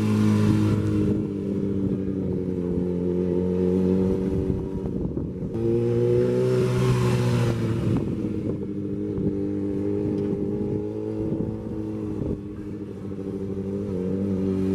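Motorcycle engine running at low revs as the bike is ridden through slow turns. The engine note lifts a little about six seconds in and settles back. It fades briefly as the bike moves away, then grows louder near the end as it comes back closer.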